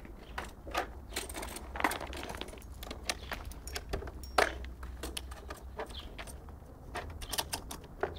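Irregular rustling, scraping and sharp little clicks of a homemade chest plate being pulled on over the head and settled on the torso.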